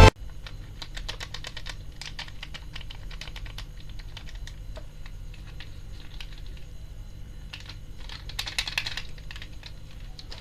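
Light, irregular clicks and taps of small plastic objects being handled, with a short louder rustle about eight and a half seconds in.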